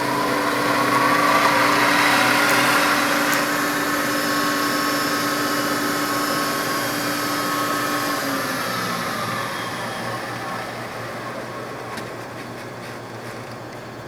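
Sharp VH3 milling machine's vertical spindle running at slow speed, a steady mechanical whine with several held tones. About eight seconds in the lowest tone stops and the running sound gradually fades as the spindle winds down.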